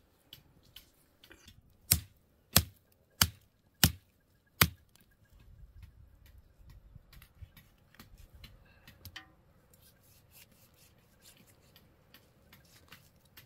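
Five sharp knocks in an even rhythm, about two-thirds of a second apart, followed by faint scattered clicks and small knocks.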